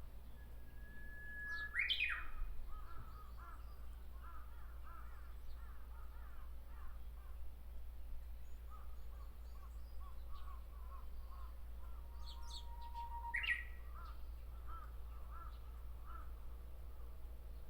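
Japanese bush warbler (uguisu) singing its 'hoo-hokekyo' song twice: each time a long held whistle followed by a quick rising flourish, about two seconds in and again near thirteen seconds. Faint, short, repeated chirping notes fill the gaps between the two songs.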